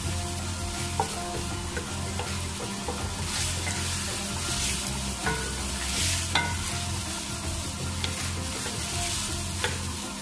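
Cubed potatoes, peas and tomatoes sizzling in oil in a metal pan while a wooden spoon stirs and scrapes through them, with a few sharp clicks of the spoon against the pan.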